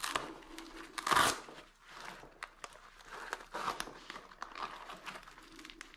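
Nylon fabric, mesh and straps of a hydration pack rustling and crinkling as they are handled, in scattered short scratchy bursts, with one short louder harsh rip about a second in.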